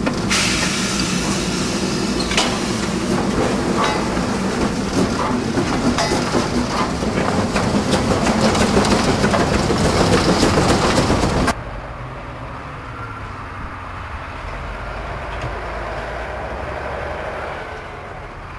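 Narrow-gauge steam train heard from on board the moving locomotive: a loud, dense clatter of wheels and running gear over the track. About two thirds of the way through it cuts off suddenly to a much quieter lineside sound of the train further away.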